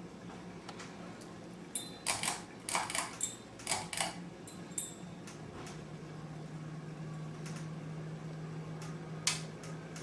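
1980s Encon Contempra hugger ceiling fan running with a steady low motor hum that shifts slightly lower about six seconds in. From about two to five seconds in comes a run of sharp clicks and rattles.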